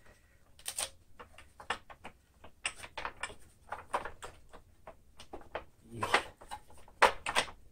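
Irregular clicks, knocks and light rattles of hands working loose the fan cover on the underside of a Sanitaire SC899 upright vacuum's base, with the sharpest knocks near the end.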